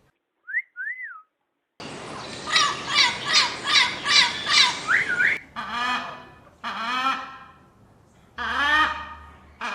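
Parrots calling: two short whistled up-and-down notes, then a quick run of about eight harsh repeated calls, then several longer harsh squawks.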